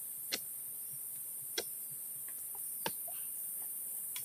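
Four sharp knocks, evenly spaced about a second and a quarter apart, over a steady high-pitched insect drone.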